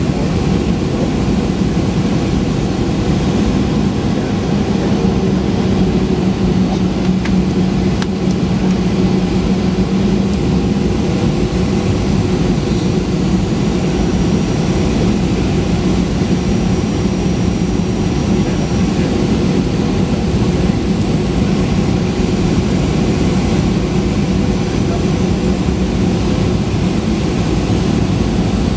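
Cabin noise of a Boeing 737-800 heard from a window seat beside the engine: its CFM56-7B turbofans and the airflow make a steady loud rush with a constant low hum as the jet descends on approach.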